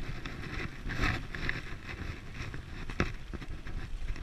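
Dog scooter rolling over a rough, muddy dirt track: tyre rumble and rattling of the frame, with wind noise on the microphone and a sharp knock about three seconds in.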